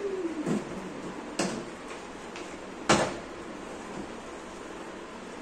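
A bottle landing with a sharp knock after being flipped, twice, about a second and a half apart, the second knock louder.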